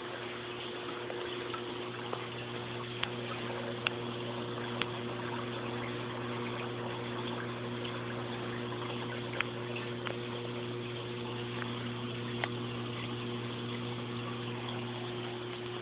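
Water circulating through a reef aquarium's plumbing: a steady rush of flowing water over a constant low hum, with a few scattered faint ticks.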